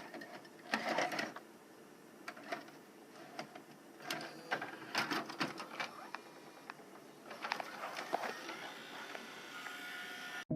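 Irregular sharp clicks and knocks over a steady background hiss, cutting off abruptly near the end.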